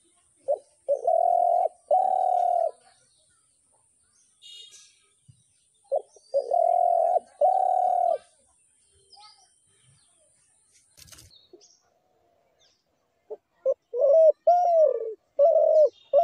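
Spotted dove cooing: three phrases about six seconds apart, each a short note followed by two long, low coos. The last phrase breaks into several shorter coos with a falling note.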